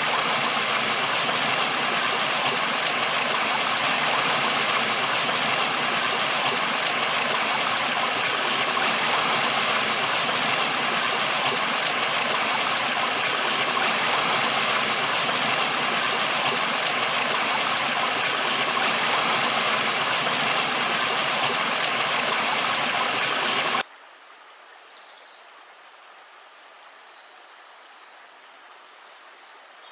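River water rushing steadily. Near the end it cuts off abruptly to a much quieter outdoor background with a few faint high chirps.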